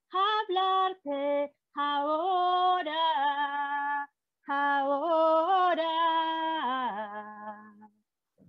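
A woman singing a song unaccompanied, heard over a video call. A few short notes lead into two longer phrases with a brief pause between them, and the last note slides down and fades out near the end.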